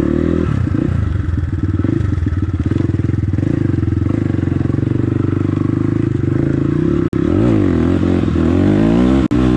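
Motorcycle engine running close by, steady at low revs at first, then revved up and down repeatedly in the last few seconds.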